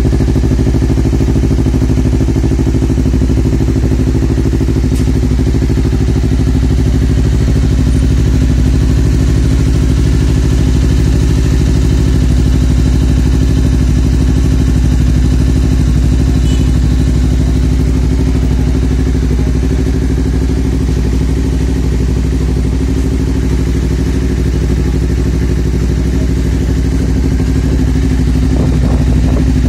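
Honda CBR250RR's parallel-twin engine idling steadily through a Prospeed Viper full-system aftermarket exhaust, a loud, even note with no revving.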